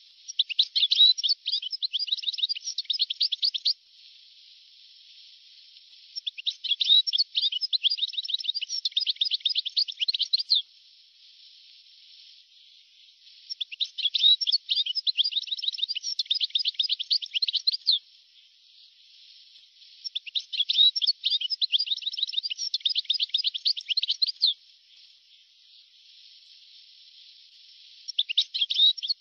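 European goldfinch singing, from a very old recording (1982–1990): four phrases of rapid, quick-fire notes, each about four seconds long, with pauses of two or three seconds between them, and a fifth phrase starting near the end. A faint hiss fills the pauses.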